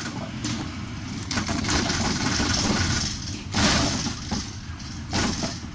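A vehicle's engine running amid road noise, with brief louder rushes of noise about three and a half and five seconds in.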